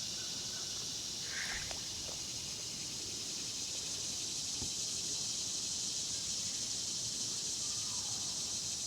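Steady chorus of insects, an even high-pitched drone that holds unchanged throughout.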